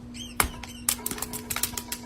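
A quick run of irregular sharp clicks and taps over a faint steady hum, with a brief high squeak near the start.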